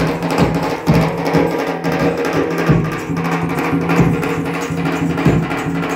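Live folk music: a hand drum beaten in a steady rhythm, about two strokes a second, over a held, unchanging note.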